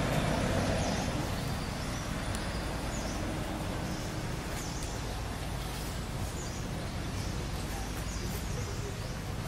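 Outdoor ambience: a steady background hiss and low hum, with short high bird chirps repeating every second or two.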